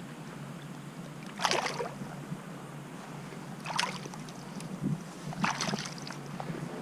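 Water splashing in a shallow stream, three times about two seconds apart, over a steady background hiss.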